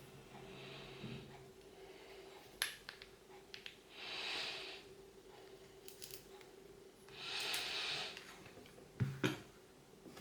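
Small metal clicks and taps from a Chubb rim lock cylinder being taken apart by hand, with two soft hissing sounds of about a second each and two sharp knocks near the end. A faint steady hum runs underneath.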